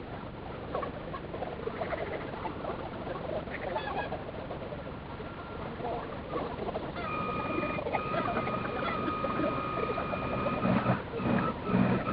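Fast-forwarded sound from a camera riding on a model tug: a high, squeaky jumble of chatter and water noise. A steady whine joins about seven seconds in.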